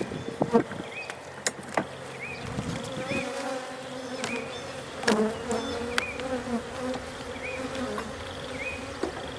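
Honey bees buzzing in a steady hum around an open hive. Scattered sharp clicks and knocks come from a hive tool prying at and lifting the propolis-glued frames, loudest about five seconds in.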